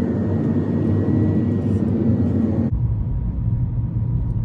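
Steady rushing road noise of a car being driven. About two-thirds of the way in it changes abruptly to a deep rumble of strong wind buffeting the microphone.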